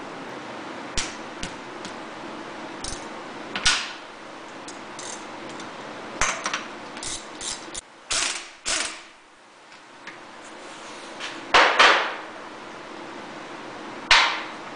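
Hand tools clicking and knocking on the aluminium crankcase of a 1995 Yamaha Big Bear 350 engine as the fasteners over the secondary shift drum's spring-and-ball detent are worked loose. Scattered sharp clicks, with several louder clanks.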